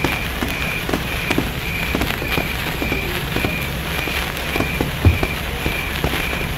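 Handheld sparkler fizzing and crackling with a dense run of sharp pops. A high chirp repeats a little less than twice a second behind it, and a single low thump comes about five seconds in.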